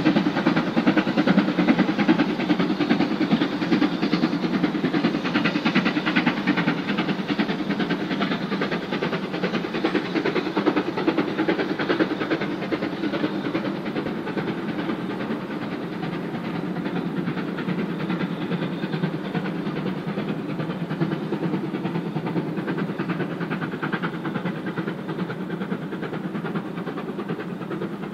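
Steam locomotive hauling a train away into the distance, its rapid exhaust beats slowly fading and growing duller.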